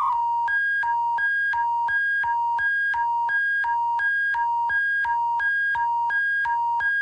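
Synthesizer music: two notes, one high and one low, alternating steadily with each note lasting about a third of a second, over a steady low drone.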